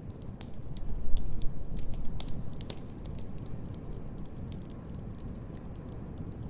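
Wood fire in a fireplace crackling, with scattered sharp pops over a low steady rumble that swells louder about a second in.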